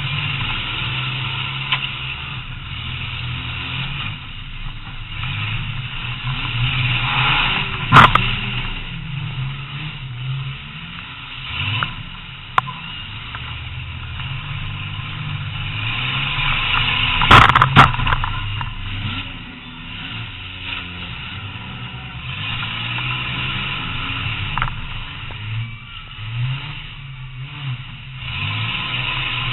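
Demolition derby car's engine running and revving, heard from inside the car, with two loud bangs from hits, one about eight seconds in and another near the middle.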